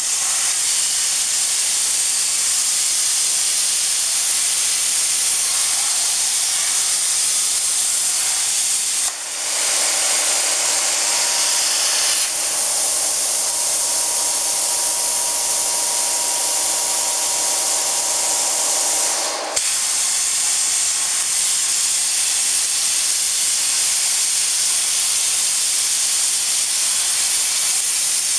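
CNC oxy-fuel cutting torch running, a loud steady hiss of its gas jet that dips briefly twice.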